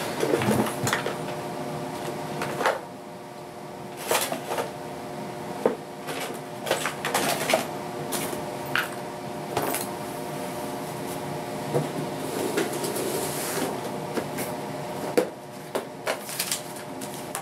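Someone rummaging through household things for tools: irregular knocks, clicks and clatters of objects being moved and set down, over a steady hum.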